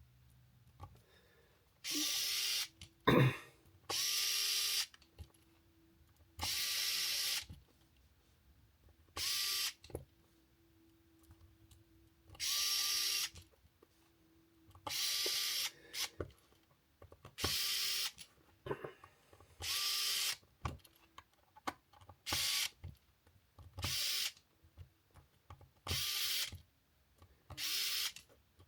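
Small cordless drill driving the tiny screws of an aluminium RC crawler beadlock wheel ring, in about a dozen short spurts of under a second each, roughly every two seconds. There is one sharp click about three seconds in.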